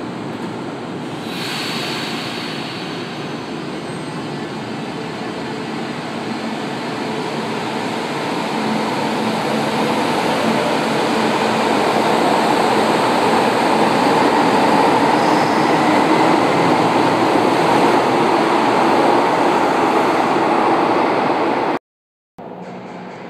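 São Paulo Metro Line 1 train pulling out of an underground station, with a brief hiss about a second in, then its running noise growing louder as it accelerates past. The sound cuts off suddenly near the end.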